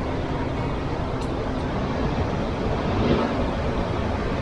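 Steady rushing noise of wind and sea at a rocky shore, low and even, swelling a little about three seconds in.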